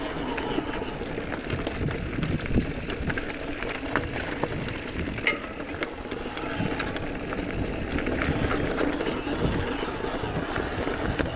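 Giant Trance E+ Pro 2 electric mountain bike being ridden along a rooty dirt singletrack: a steady rolling rumble from the tyres on the ground, with many small clicks and rattles from the bike as it bumps along.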